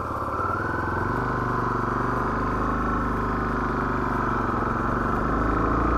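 Honda XR 250 Tornado's single-cylinder four-stroke engine pulling away in second gear on light throttle, its pitch rising slowly and steadily.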